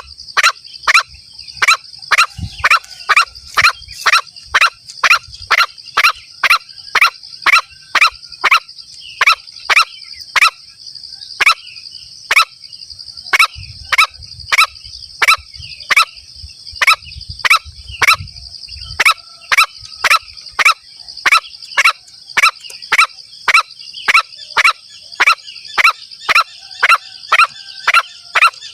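Green junglefowl lure call: short, sharp calls repeated evenly at about two a second, over a steady high insect drone.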